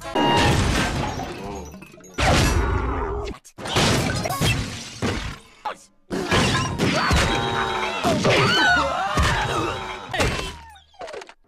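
A string of cartoon crash and shattering sound effects: four loud smashes one after another, each cut off by a short gap, the last and longest with wavering tones mixed in.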